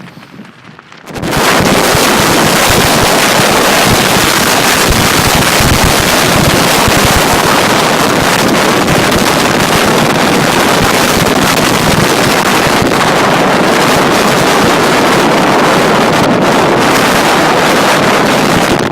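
Strong wind blasting straight into the microphone: loud, steady wind noise that starts suddenly about a second in.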